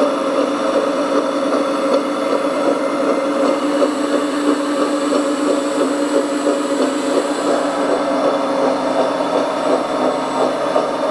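Radio-controlled model bulldozer running: a steady motor whine, with a faint rapid ticking through the middle.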